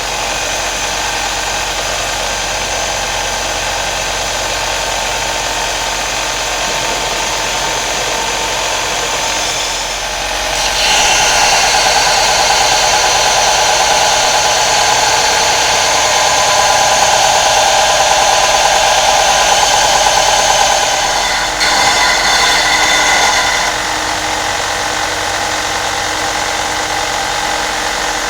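An electric power sander runs steadily while grinding the steel head of a forged chipping hammer. It gets louder and harsher for about ten seconds near the middle, and again briefly a little later, as the steel is pressed into the abrasive.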